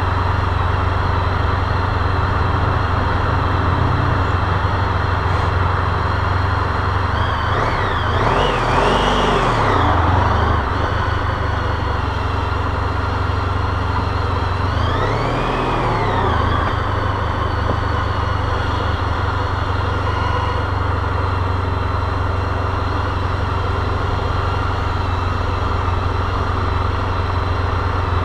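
Motorcycle engine running at low speed, its pitch rising and falling twice, about 8 and 15 seconds in, as the throttle is opened and closed.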